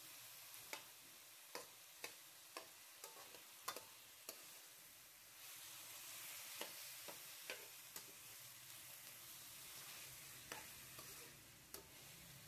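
Chicken pieces frying faintly in a steel wok while a perforated metal spoon stirs them, with sharp clicks and scrapes of the spoon against the wok. The sizzle swells for a couple of seconds about halfway through.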